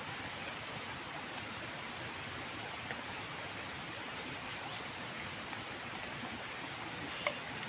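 Steady rushing hiss of running stream water, with a sharp click near the end.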